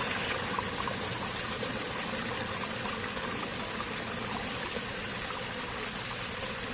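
Steady rush of running water, an even unbroken hiss.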